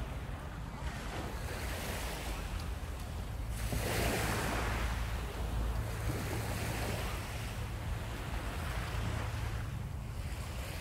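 Wind blowing across the microphone over the steady wash of surf, swelling into a louder rush about four seconds in.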